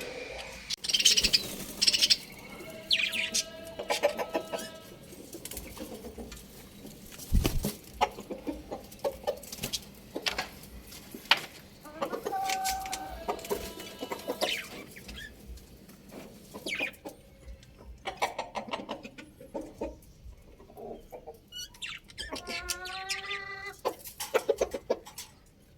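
Young roosters crowing, the clearest crows about halfway through and near the end, with clucking and scattered sharp clicks and knocks in between.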